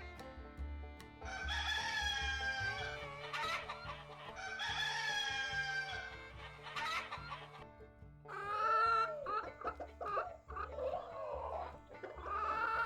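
A rooster crows twice, two long drawn-out calls, followed by a run of shorter clucking calls from chickens. Soft background music plays underneath.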